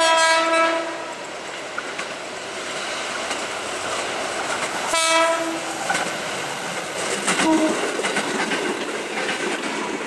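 Horn of a JR 205 series KRL commuter electric train sounding two steady one-note blasts, each about a second long, the second about five seconds after the first. Between and after them the wheels on the rails grow louder with a clickety-clack as the train comes close.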